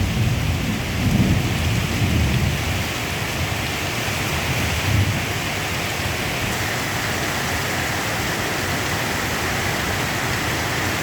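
Heavy monsoon rain pouring steadily, with low thunder rumbling through the first few seconds and dying away, and one more short rumble about five seconds in.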